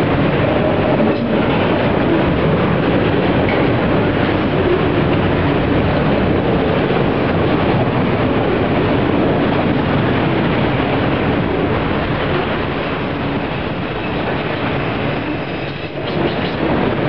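Freight train of autorack cars rolling past at speed: the steady loud rumble and clatter of steel wheels on the rails, briefly dipping near the end.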